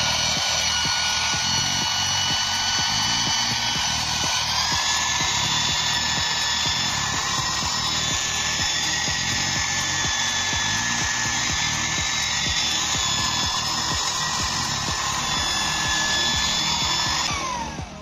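The small electric vacuum motor of a homemade cordless vacuum cleaner running at full speed, a high steady whine over a hiss, while it sucks wheat grains up a PVC pipe into a plastic bottle. The pitch steps up about four and a half seconds in, and near the end the whine falls away as the motor winds down.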